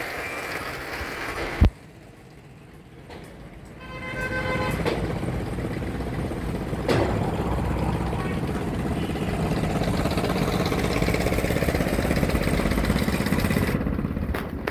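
A sharp knock a little under two seconds in, then a quieter stretch, then a motor vehicle engine running steadily with a rumbling noise. A short pitched tone sounds about four seconds in.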